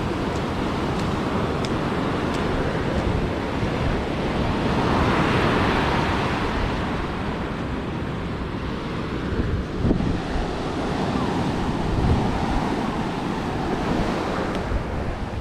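Ocean surf breaking and washing up the beach, with wind rumbling on the microphone. A wave surges louder about five seconds in.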